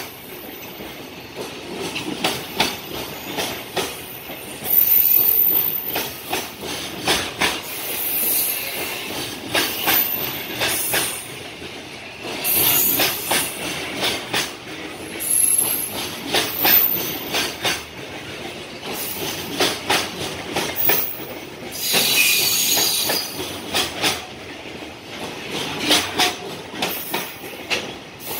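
Container wagons of a freight train rolling past at speed: repeated clatter of wheels over rail joints over a steady rumble, with brief high wheel squeals now and then.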